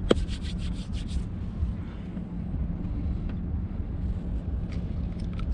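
Wind buffeting the microphone on open water over a low steady hum, with a quick run of about eight clicks in the first second and a few faint ticks near the end.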